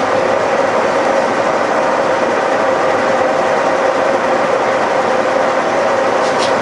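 Milling machine running with a heavy boring bar in its spindle taking a boring pass through the lathe's drive-mount casting: a steady machine drone with a constant hum, even throughout.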